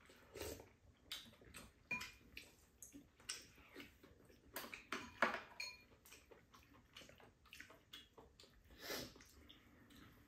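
Spoons and chopsticks clinking and scraping against bowls while eating: a scattering of short, light taps, some ringing briefly.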